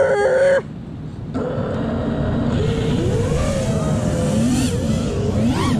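FPV racing quadcopter's brushless motors and propellers spinning up about a second and a half in, their whine rising and falling in pitch as the throttle changes.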